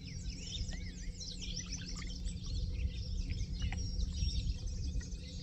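A dense chorus of many songbirds singing and chirping at once, rapid overlapping chirps and trills, over a low steady rumble.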